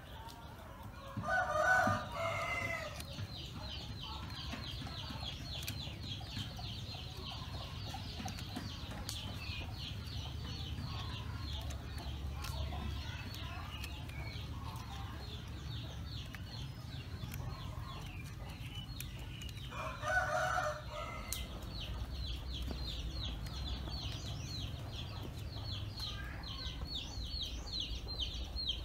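A rooster crowing twice, about a second each time, once near the start and again about two-thirds of the way through. A rapid, high chirping runs steadily underneath.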